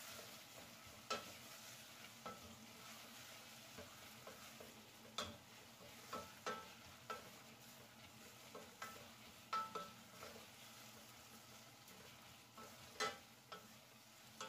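Sliced onions frying in ghee in a stainless steel pot, a faint steady sizzle, while a spatula stirs them. The spatula scrapes and knocks against the pot's sides with sharp clicks every second or so.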